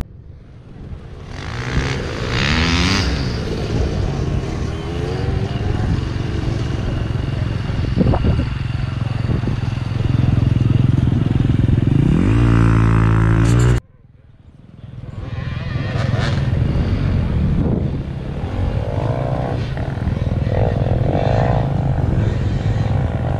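Off-road vehicle engines running, with an engine revving up in a rising whine about two seconds in and again a little past the middle. The sound cuts off suddenly just after that rev and builds back up a second later.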